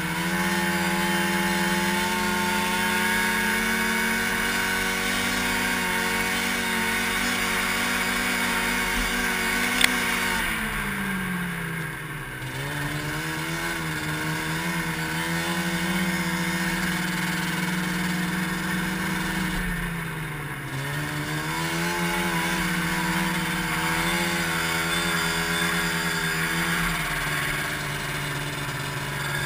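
Ski-Doo Mach 1 snowmobile's Rotax 583 twin-cylinder two-stroke engine running at a steady cruising speed, easing off and slowing twice, about ten seconds in and again about twenty seconds in, then picking back up. A single sharp click comes just before the first slowdown.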